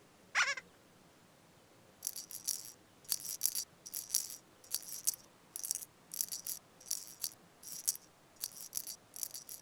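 A brief wavering, whistle-like glide, then a musical shaker rattling in a steady rhythm of short shakes, about two a second.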